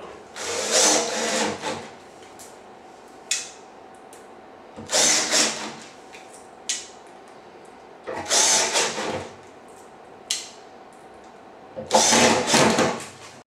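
Handheld drill-driver running in four short bursts, each about a second long, driving the four screws through a metal furniture leg's steel base plate into particleboard. Short clicks come between the bursts.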